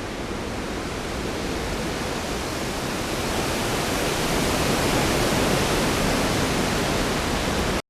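Storm sound effect: a steady rushing of heavy rain, swelling somewhat louder through the middle, then cutting off abruptly just before the end.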